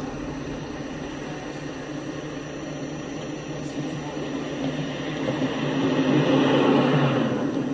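Telehandler's diesel engine running steadily as the machine drives along the tracks, growing louder for a couple of seconds near the end.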